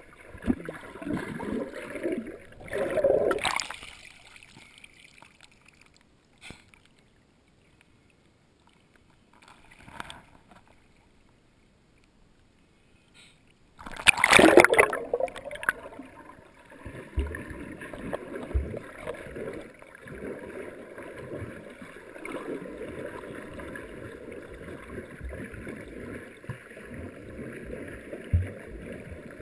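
Water heard through a sealed GoPro dive housing while snorkeling: muffled sloshing and rushing. It goes almost silent for several seconds, then a loud sudden rush of water comes about halfway through. A steady muffled wash follows, with a few dull knocks.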